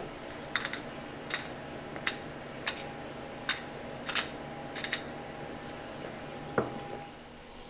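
Sparse light clicks and taps at the stove, about one every half second to second, as a seasoning shaker is used over plantain slices frying in a pan and tongs work them. A louder knock comes near the end, over a faint steady hum.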